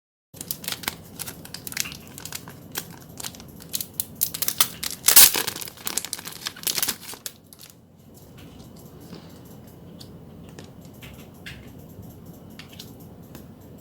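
Packaging crinkling and rustling as it is handled by hand. It is busy and crackly for the first half, loudest about five seconds in, then drops to lighter rustles and taps.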